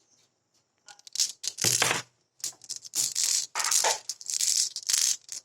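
Marbles rolling and rattling along a marble-run track of rain gutter and wooden rail, in several loud runs with short gaps, starting about a second in.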